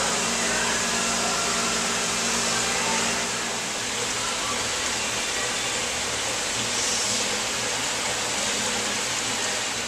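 Steady rushing hum of an aquarium holding system, its pumps and circulating water running continuously, with a low even hum underneath.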